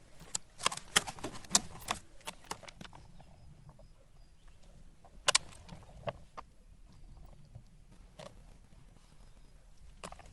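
Orbeez water beads in a meat grinder giving off sharp, irregular wet clicks and pops. A quick burst of them comes in the first few seconds, then single pops every second or two.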